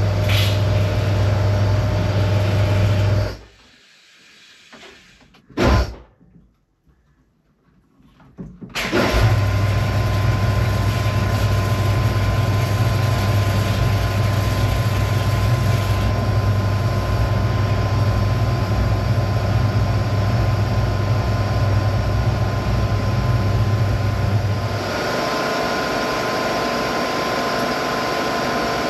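Kärcher hot-water pressure washer running at low pressure to heat water, its pump motor humming steadily under the hiss of water jetting from the spray gun into a plastic barrel. It cuts out about three seconds in and starts running again several seconds later. Near the end the low hum drops away, leaving the hiss.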